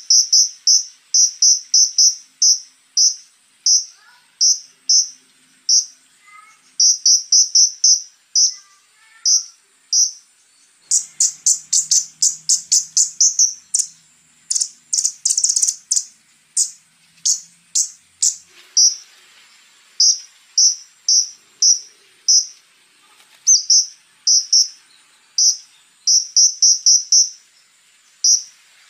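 A konin songbird singing strings of short, sharp, high-pitched notes in quick runs separated by brief pauses, breaking into a faster, rougher rattle of notes partway through. A faint steady high buzz sits underneath, and softer lower chirps come in near the start.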